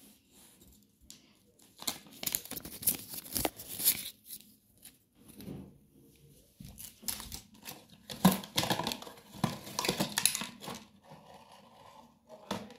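Toy packaging and paper being handled, crinkling and rustling in two spells, one about two seconds in and a longer one from about seven seconds in, with a short sharp crackle near the end.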